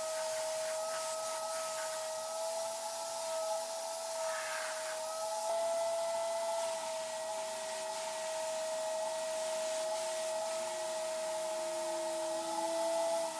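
A compressed-air tool running steadily: a constant hiss with a steady high whine over it.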